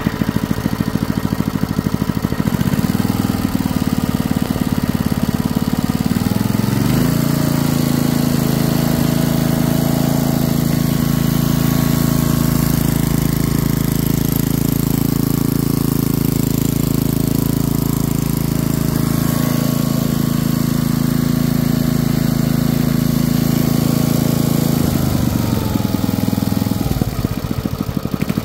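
Briggs & Stratton 5 hp horizontal-shaft engine running after repair; it speeds up about a quarter of the way in, holds a steady higher speed, then slows back to a lower speed near the end as the throttle lever is moved.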